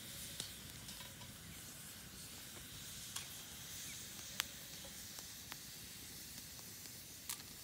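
Periwinkles sautéing in garlic butter in a cast iron skillet over a wood fire: a steady sizzle, broken by a few sharp pops.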